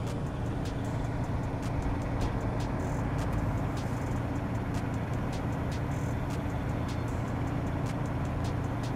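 An engine idling steadily, a low even hum that does not change in pitch, with faint regular ticking above it.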